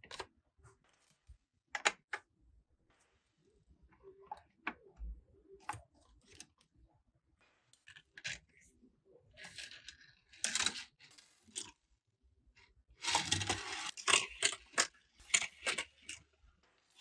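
Plastic toy trains and their packaging being handled and unboxed: scattered sharp clicks and taps, with two longer stretches of crinkling, rustling packaging in the second half.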